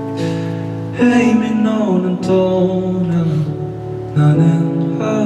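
Live acoustic guitar playing a slow song intro, with chords struck freshly about a second in and again a little after four seconds.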